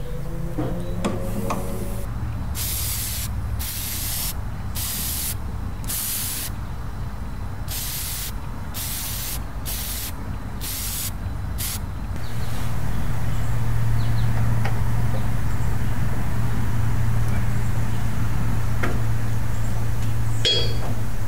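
A few light metal clicks from a pipe wrench on a fitting, then an aerosol spray-paint can hissing in about ten short bursts. About twelve seconds in, a steady, louder low engine hum starts: the Ford tractor running.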